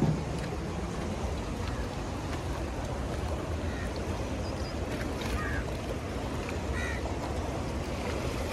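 Steady outdoor noise of the flowing river and wind on the microphone, heaviest in the low end, with a few faint, short distant calls partway through.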